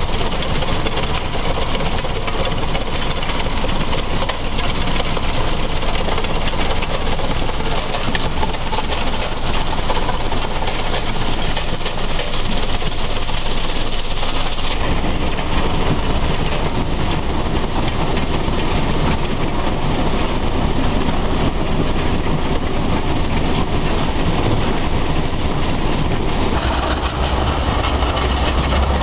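Svedala mobile rock crushing plant running: a dense, steady clatter and rumble from the crusher, screen and conveyors carrying broken rock. The sound changes abruptly about halfway through, and a deeper rumble comes in near the end.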